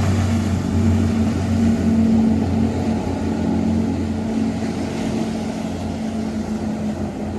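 Outboard engines of motorboats passing through the inlet, a steady low drone that is loudest about two seconds in and slowly eases off.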